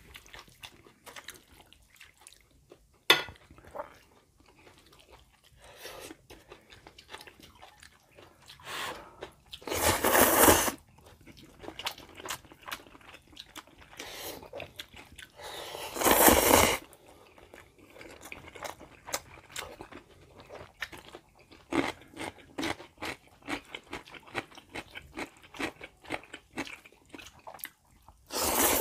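Close-up eating of jjapaghetti black-bean noodles: wet chewing with many small clicks. Three loud noodle slurps of about a second each come at roughly ten, sixteen and twenty-eight seconds in.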